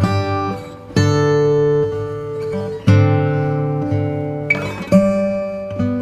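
Background music: strummed acoustic guitar chords, with a fresh chord struck about every two seconds.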